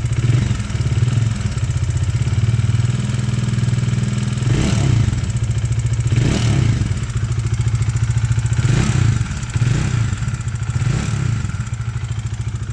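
Bajaj Dominar 400's single-cylinder engine running with an abnormal mechanical noise, its throttle blipped briefly about five or six times. The owner puts the noise down to cracked valve guides.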